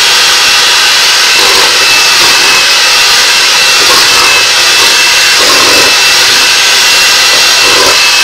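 Electric hand mixer running steadily, its twin beaters churning crumbly sugar cookie dough in a stainless steel bowl: a loud, even motor whine with a thin high tone.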